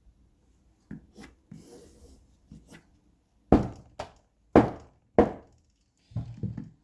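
Knocking on a projector's parts as it is taken apart. A few light taps come first, then four sharp knocks about half a second apart, and a quick run of smaller knocks near the end.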